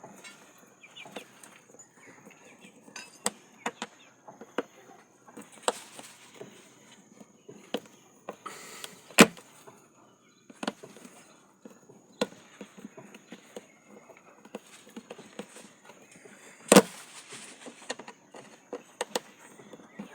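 Irregular clicks and knocks of a tub washing machine's plastic parts being handled and closed up, with two loud knocks about nine and seventeen seconds in.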